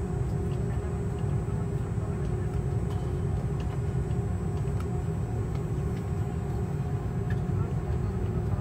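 Steady low rumble inside a jet airliner's cabin as it taxis with its engines at idle, with a steady hum running through it.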